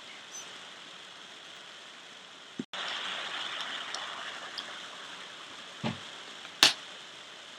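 Crackling fireplace: a steady hiss with small pops, and one sharp loud pop near the end. The sound cuts out for an instant a little over halfway in, then comes back louder and slowly settles.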